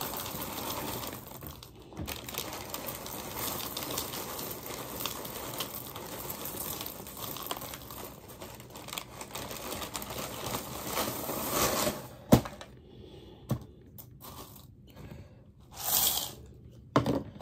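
Frosted Flakes cereal pouring from a crinkling plastic bag liner into a plastic measuring cup, a steady rustling pour. Near the end the cupful is tipped into a bowl in a short, louder rush.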